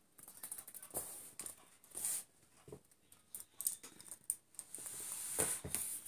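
Budgerigar's feet and a plastic stick toy held in its beak making irregular light taps, clicks and scrapes on a wooden table and a glass mirror, with a louder knock near the end.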